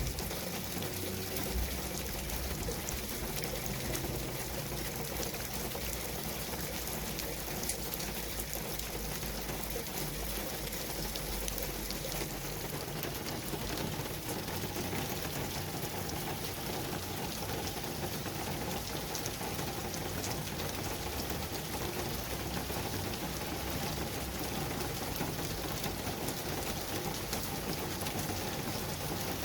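Steady rain falling, an even hiss with many fine drop clicks pattering on a surface.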